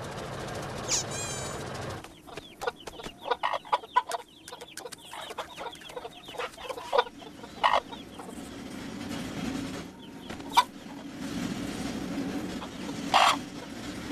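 Cartoon chicken clucking: a quick run of short clucks that trails off, followed by a few isolated clicks. A short falling whistle comes about a second in.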